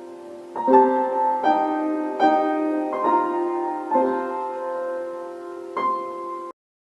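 Background piano music: slow chords struck about every three-quarters of a second, cutting off abruptly near the end.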